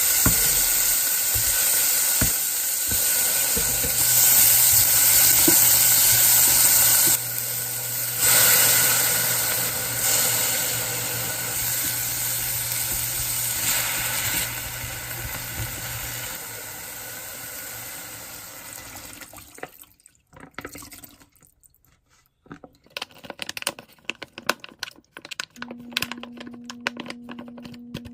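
Water running hard from a tap into a sink, with a steady hum under it for much of the time. The flow fades out about two-thirds of the way through, and a few light clinks and knocks follow.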